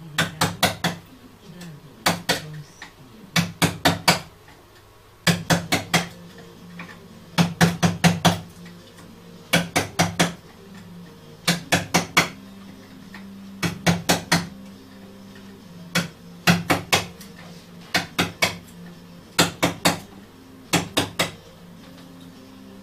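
Round wooden mallet striking a wooden-handled chisel, giving sharp knocks in quick bursts of two to five blows, a burst about every two seconds.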